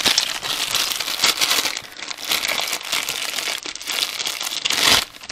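Plastic packaging crinkling and crackling steadily as it is handled and pulled open.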